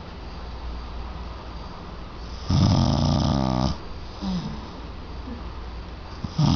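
A person snoring loudly. One long, rumbling snore starts about two and a half seconds in and lasts about a second, and the next one begins near the end.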